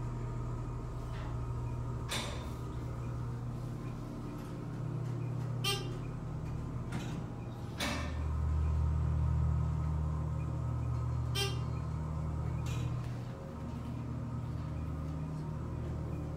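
ThyssenKrupp Dover hydraulic elevator's pump motor running as the car rides up, heard inside the cab as a steady low hum that grows louder for a few seconds from about eight seconds in, with a few short clicks along the way.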